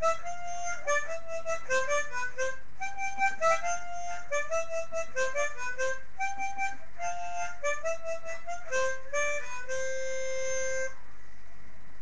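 Harmonica playing a quick melody of short notes, closing on one long held note that stops near the end.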